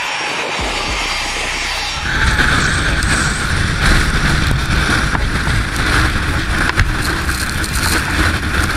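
Jet airliner engines at takeoff thrust, a loud steady roar that swells about two seconds in, with the jet blast buffeting the microphone.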